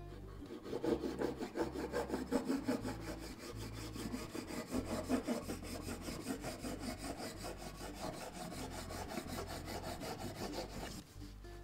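Serrated blade of a cake leveler sawing back and forth through a chocolate genoise sponge cake on a wooden board, in quick, even rasping strokes that stop about eleven seconds in.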